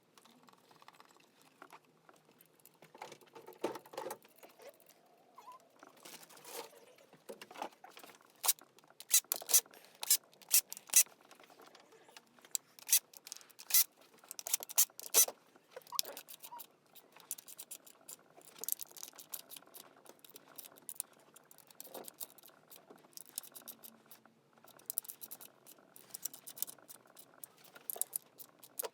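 Irregular light clicks and clinks of hand tools and small metal engine parts being handled and set down, loudest and busiest in the middle stretch.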